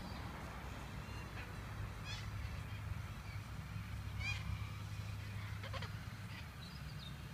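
Parrots giving a few short, harsh squawks, spaced out at about two, four and six seconds in, over a steady low rumble.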